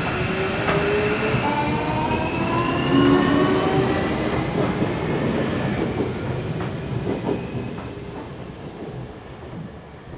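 JR Kyushu 305 series electric train pulling away: its VVVF inverter and permanent-magnet traction motors whine in several tones that rise together as it accelerates, with a few clicks from the wheels. The sound fades over the second half as the train moves off.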